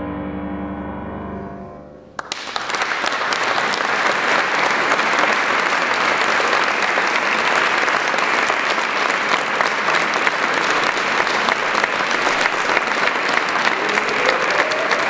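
The last chord of a piece on an 1853 pianoforte dies away. About two seconds in, an audience breaks into steady applause.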